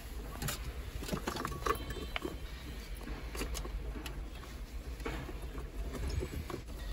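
Handling noise from wiring harnesses and plastic connectors being moved about inside a car's dashboard: cable rustling with irregular light clicks and taps.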